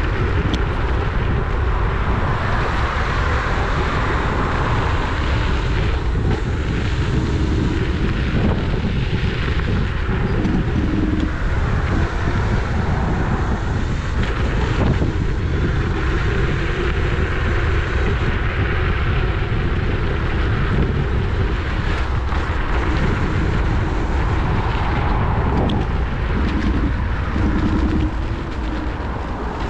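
Steady rush of wind on the action camera's microphone with road rumble while riding a Dualtron electric scooter, easing slightly near the end.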